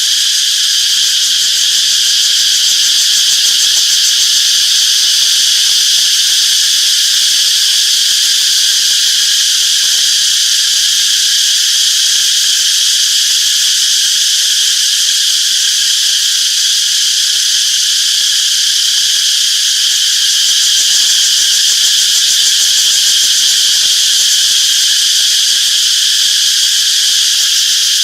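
Chorus of cicadas singing: a loud, steady, high-pitched buzz with no pauses.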